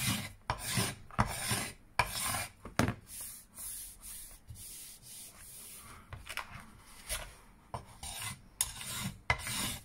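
Hand tool scraping along a wooden axe handle in repeated strokes, shaving it thinner, about one or two strokes a second. The strokes go quieter for a few seconds in the middle, then pick up again.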